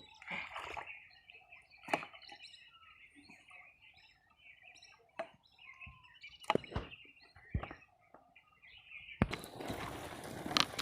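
Birds chirping, with scattered sharp knocks. About nine seconds in, a dense rushing noise starts and goes on.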